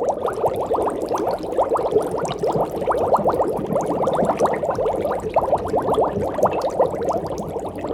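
Aquarium air bubbler running: a steady stream of small bubbles gurgling up through the tank water, many quick bubbling blips in a row.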